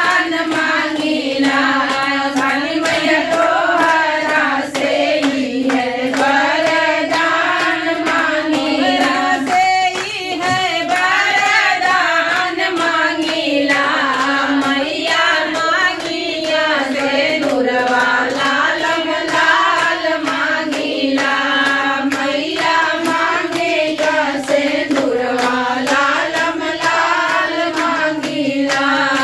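A group of women singing a devi geet, a Hindu devotional folk song to the goddess Awsani Maiya, together in unison, keeping time with steady hand claps.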